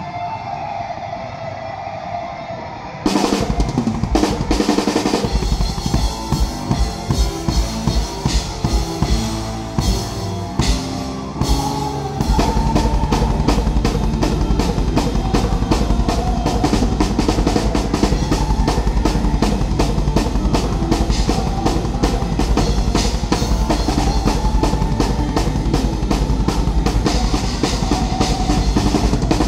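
Live heavy metal band heard from the drum riser, with the drum kit up front. A held note for about three seconds, then the band comes in with drum hits and short stops, and from about twelve seconds in a fast, steady bass drum beat drives on under the band.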